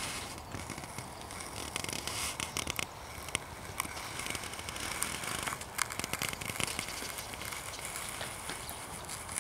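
Horse's hooves crunching and clicking on a granular arena surface as it walks and trots, in irregular crackles over a steady rustling background.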